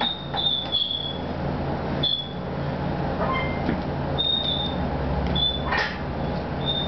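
Gloved punches landing on a hanging heavy bag, the loudest a sharp hit just before the end, while the bag's hanging chains give short high squeaks, about half a dozen at irregular intervals as it swings. A steady low hum runs underneath.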